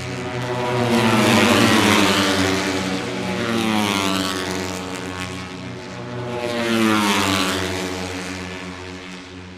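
Moto3 racing motorcycles, with single-cylinder 250 cc four-stroke engines, running at high revs as they pass one after another: three loud swells of engine note, each rising and then falling in pitch as a bike goes by.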